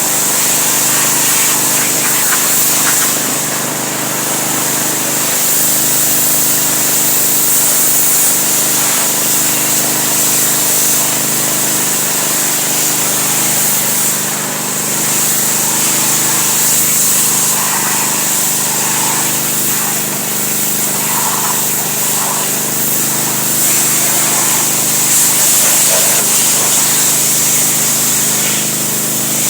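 Pressure washer running steadily, its motor humming under the loud hiss of the water jet.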